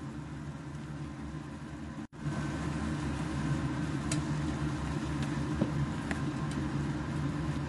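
Pork, onion and tomato sizzling in a non-stick frying pan while a spatula stirs them, with a few sharp clicks of the spatula against the pan, over a steady low hum. The sound cuts out for an instant about two seconds in, then comes back louder.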